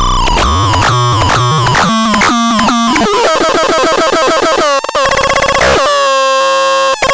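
Synthesizer playing harsh, buzzy tones: quick runs of stepped notes with short pitch glides, then a held note for about two seconds near the end.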